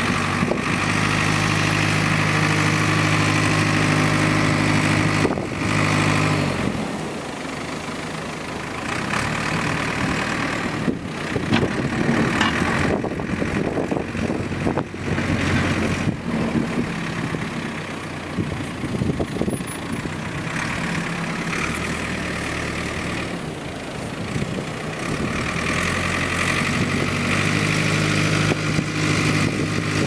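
Ford 555C backhoe's Ford industrial diesel engine running as the machine pushes snow with its front bucket. The engine note is steady and strong for the first six or so seconds, turns rougher and less even through the middle, and comes back steady near the end.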